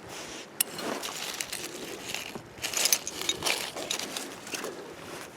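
Hands rummaging through buried debris, with irregular crunching and clicking of dirt and shards of pottery and glass.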